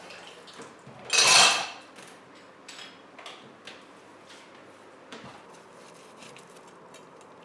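Kitchenware clattering: one loud clash about a second in, lasting under a second, then scattered light clicks and knocks.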